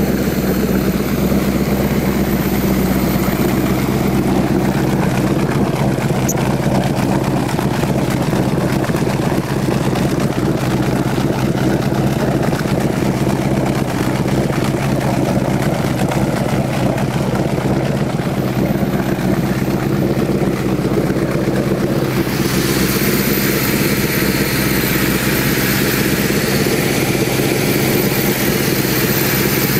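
Oldsmobile 455 V8 of a 1976 Sidewinder jet boat running at a steady speed while under way. About three-quarters of the way through, a louder hiss joins the engine sound.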